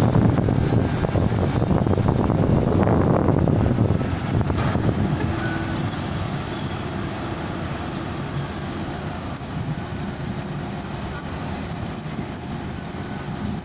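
Engines of cargo-handling machinery running at a container pier: trucks, a container forklift and the ship's cranes. The noise is loudest for the first four seconds or so, then settles into a steadier, quieter drone.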